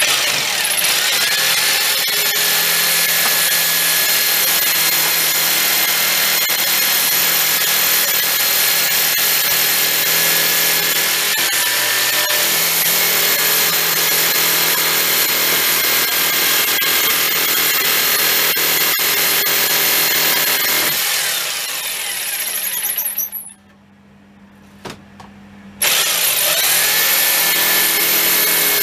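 Handheld electric drill running at a steady high whine as it drills into a workpiece. About 22 seconds in the motor winds down and stops. After a short pause with a click, it spins up again near the end.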